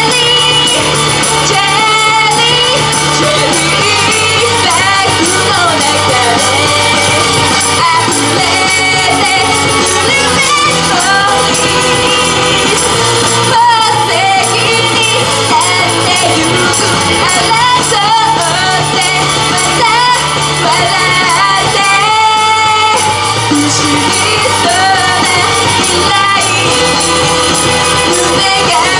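Pop music with a sung vocal line over steady bass notes, playing without a break.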